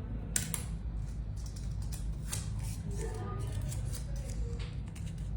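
A series of light, irregular clicks and rustles from small objects being handled, over a steady low hum.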